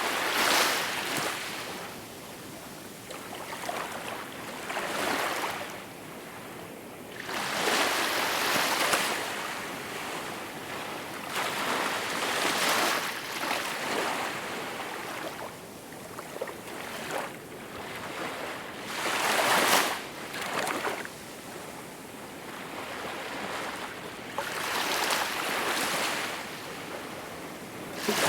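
Small waves washing onto a shore. The water noise swells and falls again every few seconds.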